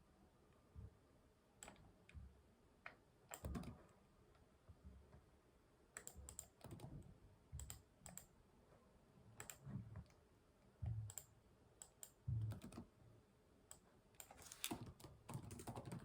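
Quiet typing on a computer keyboard: irregular keystrokes in short, scattered clusters with pauses between, growing busier near the end.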